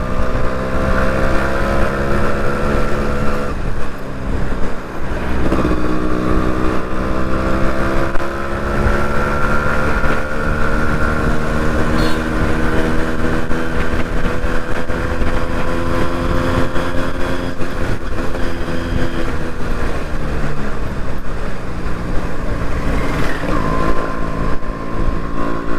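Yamaha RX two-stroke single-cylinder motorcycle engine running under way, its pitch dropping at gear changes a few seconds in, then climbing steadily for several seconds and easing off before shifting again near the end. Wind rumble on the microphone underneath.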